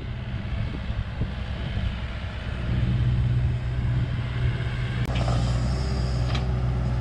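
Excavator's diesel engine working under load, a steady low hum that grows louder about three seconds in, with a sharp knock about five seconds in.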